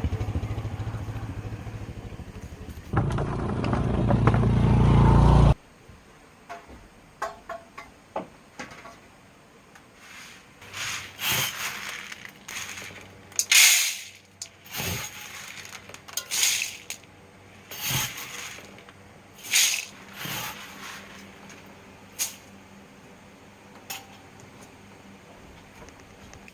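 Small engine running steadily and loudly, stopping abruptly about five and a half seconds in. It is followed by scattered light knocks and a series of short scraping swishes.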